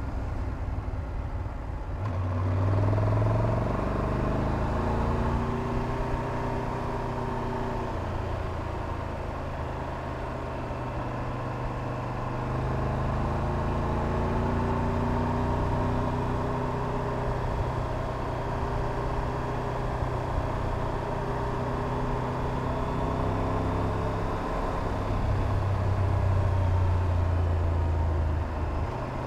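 Triumph Tiger 1200 Rally Pro's three-cylinder engine running on the move, its pitch climbing and falling several times as it accelerates and eases off, over a steady rush of wind and road noise.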